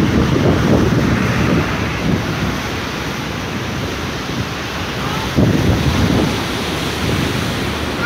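Ocean surf breaking and washing over shoreline rocks: a continuous rushing of waves, with wind buffeting the microphone. A wave crashes in noticeably louder about five seconds in.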